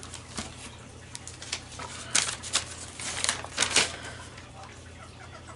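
Paper rustling and crackling as a receipt is handled, in a run of sharp crackles that are loudest between about two and four seconds in.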